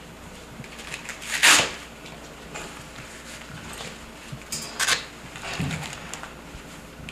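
Scattered handling noises as people work over a patient on a stretcher. There is a loud brief rustle about a second and a half in, two short sharp clatters near five seconds, and a low thump just after them.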